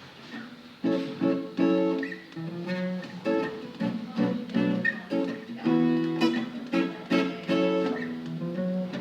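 Guitar playing a sequence of chords, each struck and left to ring, beginning about a second in.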